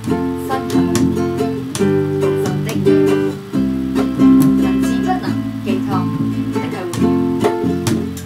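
Acoustic guitar strumming chords in a steady rhythm, with the chords changing every second or two.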